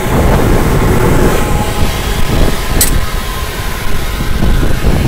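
Cargo tank vapour rushing out of a tanker's pressure-vacuum (PV) valve as its pressure side is lifted by hand: a loud, uneven rush, with one sharp click a little before the middle.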